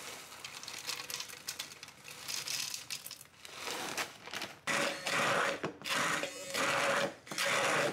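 Rustling and light clatter as sweet corn kernels are tipped into a beaker of milk. Then an immersion hand blender runs in about four short loud pulses, blending the corn and milk.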